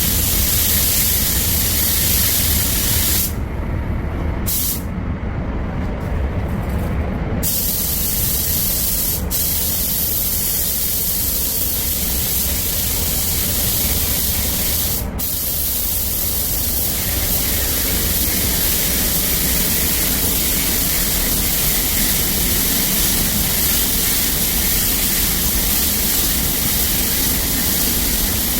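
Compressed-air paint spray gun spraying with a steady hiss over a low hum, shutting off briefly several times in the first half as the trigger is released.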